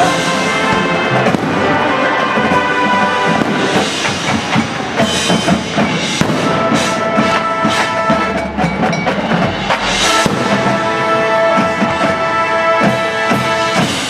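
Brass and drum music, as from a drum and bugle corps: long held brass chords over drum strikes.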